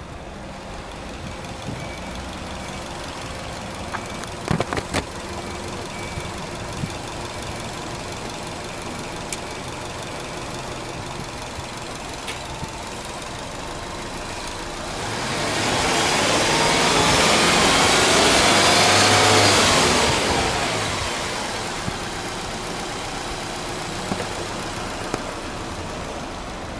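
Subaru Legacy B4 2.0GT spec B's turbocharged EJ20 flat-four engine idling steadily. It is revved up for about five seconds just past the middle, then drops back to idle.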